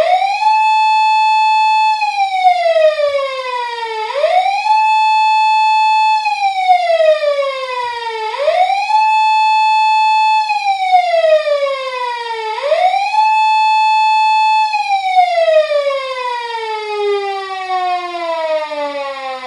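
Japanese police car siren wailing. The pitch rises quickly, holds high for about a second and a half, then falls slowly, repeating about every four seconds. After the fourth rise it winds down in one long, slow fall.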